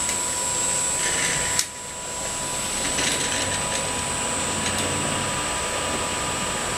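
Three-phase induction motor running on a Delta VFD055E43A variable-frequency drive during a post-repair bench test, a steady running noise with a high, steady whine over it. About one and a half seconds in there is a click, the sound drops, and it builds back up over about a second.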